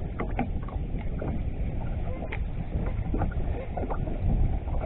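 Wind rumbling on the microphone over water slapping against a bass boat's hull, with a few faint ticks and short calls above it.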